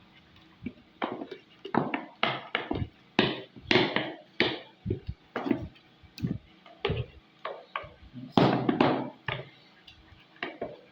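Hand-stirring a thick cream mixture in a bowl with a utensil, giving irregular short scrapes and knocks against the bowl, about two or three a second with brief pauses.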